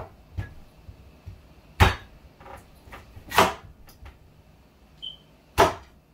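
Large kitchen knife chopping down onto a wooden cutting board: several sharp chops at irregular intervals, three of them loud, roughly one and a half to two seconds apart.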